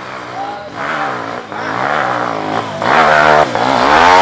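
Trail motorcycle engine revving hard in repeated bursts, its pitch rising and falling, much louder from about three seconds in, as the bike works up a steep muddy climb.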